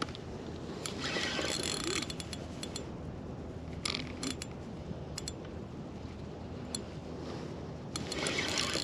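Fishing reel clicking in short bursts while fighting a hooked sturgeon: rapid ratcheting about a second in, again around four seconds, and near the end.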